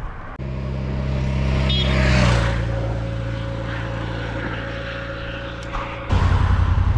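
Motorcycle engines running at the roadside, with a swell of traffic noise about two seconds in as a vehicle passes. Near the end the sound jumps suddenly to a louder, pulsing engine note.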